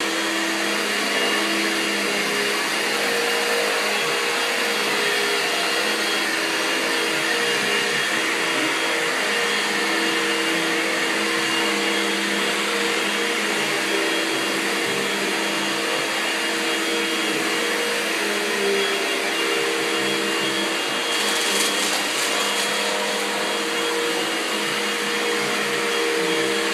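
Vacuum cleaner running steadily on carpet: a constant motor noise whose pitch holds steady throughout.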